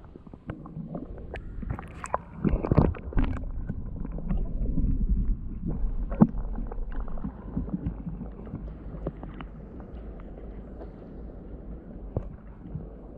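Water heard from under the surface: muffled sloshing and gurgling with scattered sharp knocks, busiest a couple of seconds in, then settling to a low rumble.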